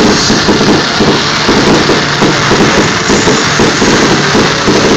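Fireworks display going off without a break: a loud, dense, continuous rumble and crackle of bursting shells.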